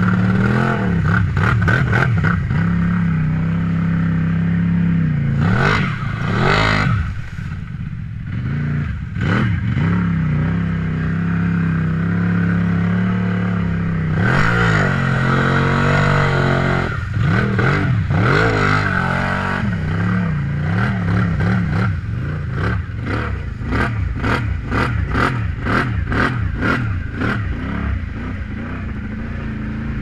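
ATV engine running and revving up and down as it drives through shallow water, with splashing and a run of knocks about twice a second in the later part as it bounces over rough, tussocky ground.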